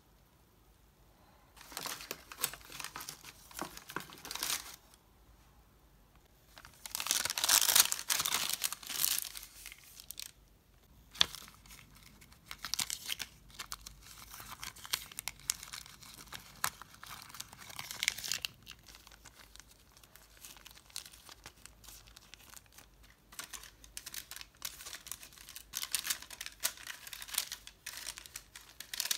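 Brown kraft paper and a clear plastic sticker sleeve crinkling and rustling under hands as small stationery items are packed into a paper-filled box. The rustling comes in uneven bursts, loudest about eight seconds in, with one sharp tap about eleven seconds in.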